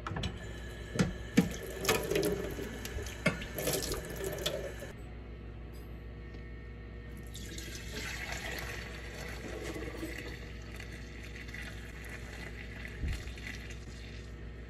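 Metal knocks and clatter as the lid of a stainless steel milk pail is handled, then, about halfway in, fresh cow's milk pouring in a steady stream from the pail through a cloth strainer.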